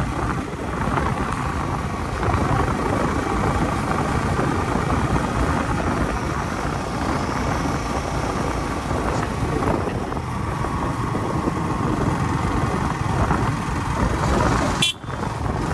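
Motorcycle on the move, its engine running under a steady rush of wind on the phone's microphone; the sound briefly drops out near the end.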